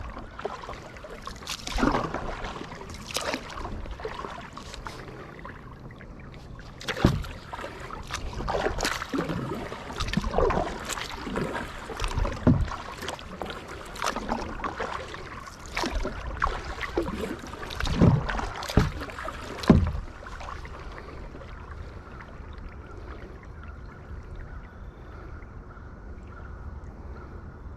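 Kayak paddling: irregular splashes and knocks from the paddle strokes, about one every one to two seconds, which stop about two-thirds of the way through, leaving a faint steady background.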